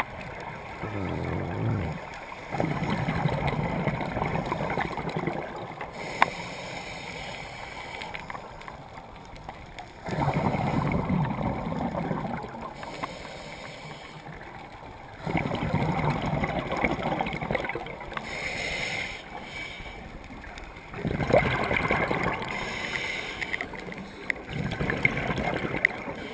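Scuba diver breathing through a regulator underwater: five gurgling rushes of exhaled bubbles, each two to three seconds long and about five to six seconds apart, with a quieter hiss between them.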